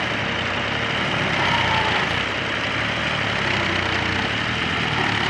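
Diesel farm tractor engine running steadily.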